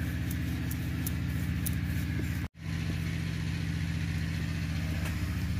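A steady low engine-like hum, running evenly, that cuts out for an instant about halfway through.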